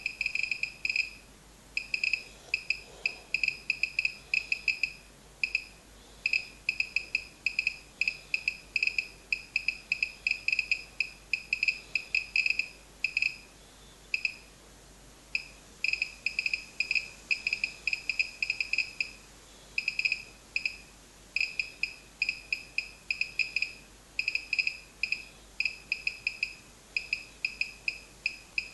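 Gamma-Scout dosimeter's ticker beeping once for each detected count, set against a sample of pitchblende (uranium ore) in gamma-only mode. The short high beeps come fast and at random, in dense clusters broken by brief pauses, as radioactive decays are counted.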